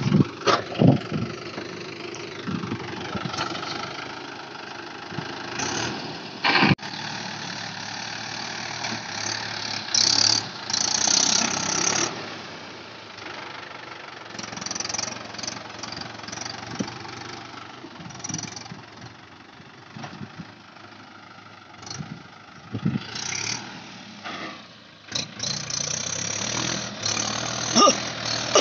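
Tractor engine running steadily, with several short, louder noisy bursts over it.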